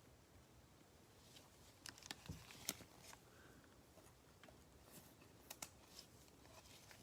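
Faint handling of trading cards: a handful of light clicks and taps, clustered a couple of seconds in and again near the middle, over quiet room tone.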